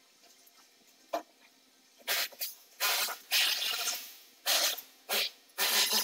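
A single click, then from about two seconds in a run of irregular short scraping and rustling noises.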